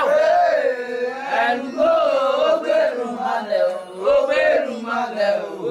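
Voices chanting a Yoruba Ifa ritual song, the melody rising and falling.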